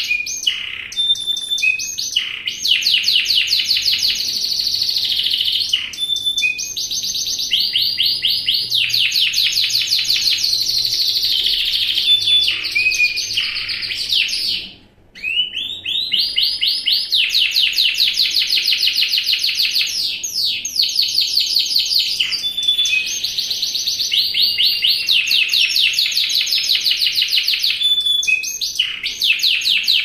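Yorkshire canary singing a long, continuous song of fast rolling trills and repeated notes, broken by a brief pause about halfway through.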